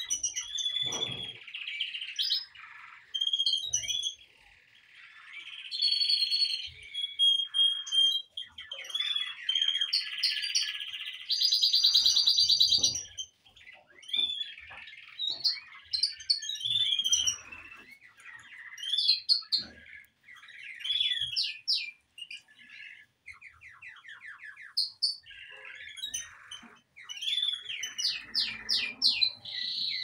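Caged canaries singing: a run of varied chirps and whistled notes from several birds at once, with fast rolling trills of rapidly repeated notes, the longest about twelve seconds in and another near the end.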